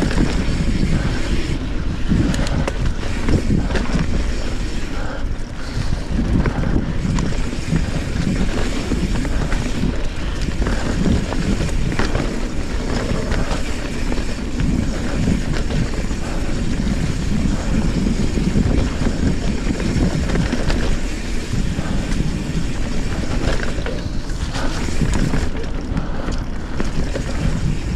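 Trek Fuel EX 7 full-suspension mountain bike ridden along a wet, sandy trail: a steady rush of wind on the action camera's microphone, tyre noise, and frequent knocks and rattles over bumps.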